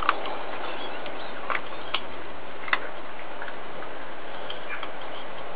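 A few short, sharp clicks, irregularly spaced, over a steady background hiss.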